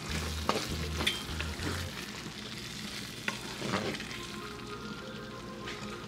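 Wooden spoon stirring thick meat spaghetti sauce in a nonstick pan on the stove, the sauce sizzling steadily as it cooks, with a few short scrapes of the spoon through the sauce and against the pan.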